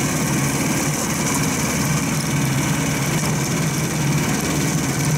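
The engine of an Uragan Taiga 2000 motorized snow pusher (tracked tow unit) running steadily at an even speed.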